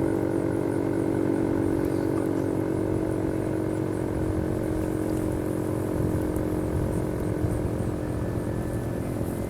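Federal Signal 3T22 three-tone outdoor warning siren sounding a steady chord that slowly fades over the first few seconds, as the siren winds down, with low wind rumble underneath.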